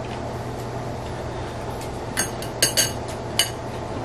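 Tableware clinking at a meal: spoons and chopsticks against ceramic bowls and plates, a handful of sharp clinks between about two and three and a half seconds in, over a steady low hum.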